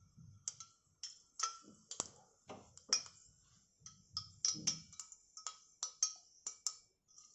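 Hot oil in a small steel tempering pan on a gas burner, crackling with quiet, irregular pops, two or three a second. The oil is hot and ready for a mustard-seed tempering.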